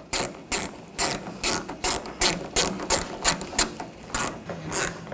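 Hand ratchet clicking steadily, about three clicks a second, as a door-handle retaining bolt is tightened down.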